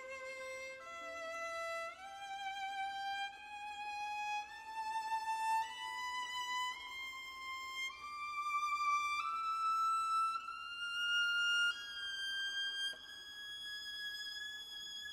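Viola playing a slow line of held notes that climbs step by step through nearly two octaves into a very high register. The notes change about once a second, and the last few are held longer.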